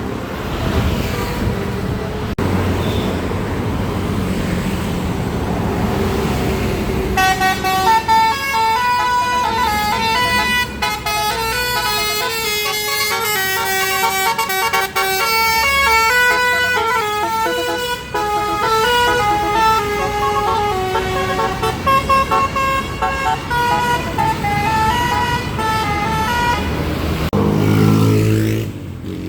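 Street and engine noise, then a bus's basuri multi-tone air horn playing a quick melody of short stepping notes for about twenty seconds.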